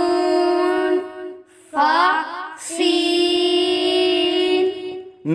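A high-pitched voice chanting Arabic letter names in long, drawn-out held tones, with a short wavering glide between two long notes.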